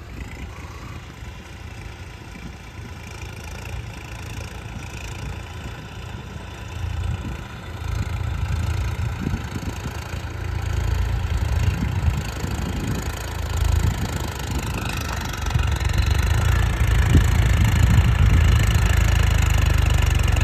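Swaraj 960 FE tractor's diesel engine running steadily under plough load, pulling a two-bottom reversible plough through hard soil in fourth gear low range at about 1200 rpm. It grows steadily louder as the tractor comes closer.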